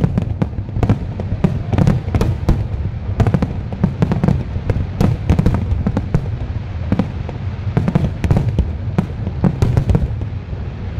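Fireworks display: aerial shells bursting in quick succession, a dense run of sharp bangs over a continuous low rumble. The bangs thin out about ten seconds in.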